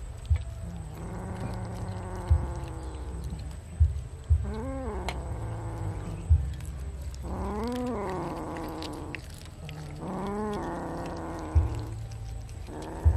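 Domestic cat growling and yowling while eating raw fish, the warning sounds of a cat guarding its food from other cats. About five drawn-out wavering calls, each half a second to two seconds long, sound over a low steady rumble.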